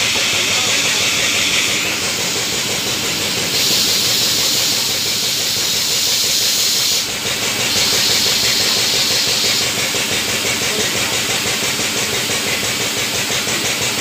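Truck tyre changing machine at work, hissing steadily with a machine running underneath. The hiss turns brighter twice, for a few seconds each time, about four and eight seconds in.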